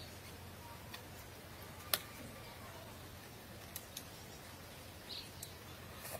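Quiet eating: a few sharp clicks of wooden chopsticks as noodles are picked up and eaten, one clearly louder about two seconds in.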